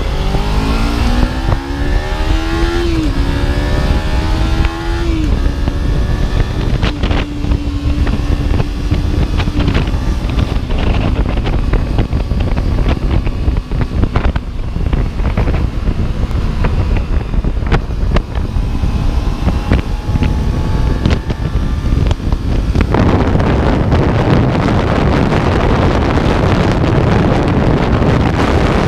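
Kawasaki Ninja 300's parallel-twin engine accelerating through the gears, its pitch climbing and dropping at each upshift, then holding steady. Later wind rushes loudly over the microphone as speed builds.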